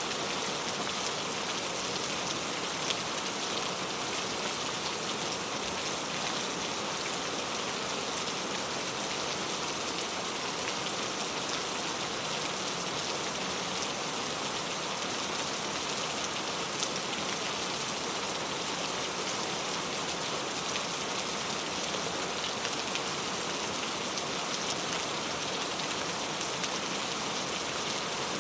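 Steady rainfall, a constant hiss of rain with scattered individual drops ticking on a surface.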